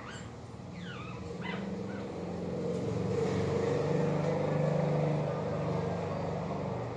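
A passing motor vehicle: its low engine hum grows louder to a peak about four to five seconds in, then fades. There are a couple of short high chirps about a second in.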